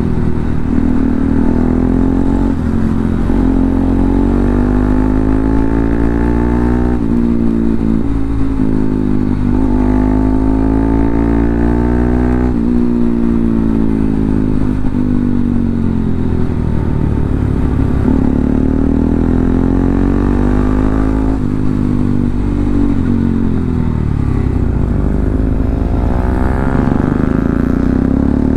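Bajaj Pulsar NS200's single-cylinder engine heard from the bike while riding, its pitch climbing and falling again and again as the throttle is opened and eased off.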